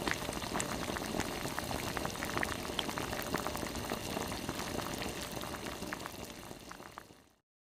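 Liquid boiling hard in a pot: a steady bubbling hiss full of small pops, fading away about seven seconds in.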